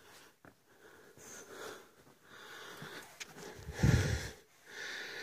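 A person breathing hard while walking up a steep incline: a run of noisy, wheezy breaths about a second apart, the loudest about four seconds in.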